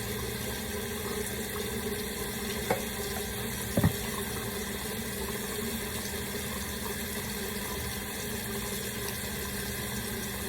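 Tap water running steadily into a sink during hair washing, with two brief knocks a little over a second apart about three seconds in.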